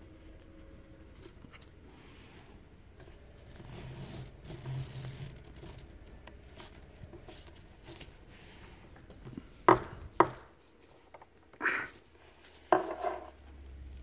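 Nylon webbing strap rubbing and sliding through a metal cam buckle as it is threaded and pulled. About ten seconds in come two sharp clicks from the metal buckle, then two louder short scraping clatters near the end as the strap is drawn tight.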